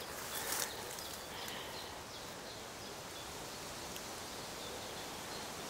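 Quiet woodland-garden ambience: a steady faint hiss with a few faint high chirps, and a short rustle about half a second in.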